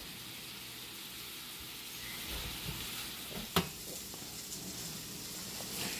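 Sliced leeks sautéing in a stainless steel skillet with a steady, soft sizzle as they wilt. A single sharp click sounds about three and a half seconds in.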